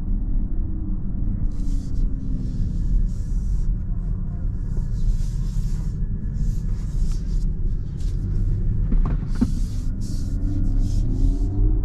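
Kia EV6 electric car driving slowly, heard from inside the cabin: a steady low rumble of tyres and road, with a faint whine that falls in pitch as the car slows near the start and rises as it speeds up again near the end. Bursts of hiss come and go, and there is a brief squeak about nine seconds in.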